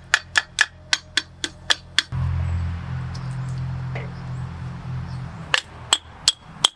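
A hammer beats on the steel pinion housing of a truck's Eaton RS-404 rear differential in quick, even blows, about four a second, to drive the pinion assembly loose. The blows stop after about two seconds, a steady low hum follows for about three seconds, and near the end there are several more sharper, ringing metal strikes.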